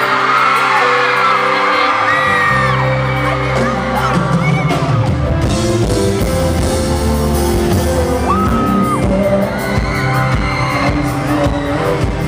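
Live pop band with a male singer, heard from the audience, with fans screaming over it. Bass notes come in about two seconds in, and drums join a few seconds later.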